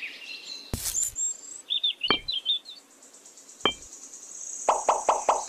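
Bird chirps with three separate sharp taps, as miniature bricks and plastic grass tufts are set down. A rhythmic music track with a quick steady beat starts near the end.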